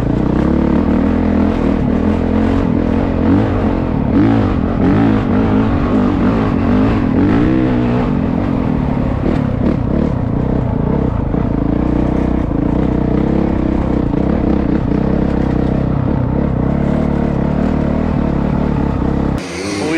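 Dirt bike engine heard from a helmet-mounted camera while riding a dirt trail. The pitch rises and falls steadily as the rider works the throttle through the gears, and it cuts off just before the end.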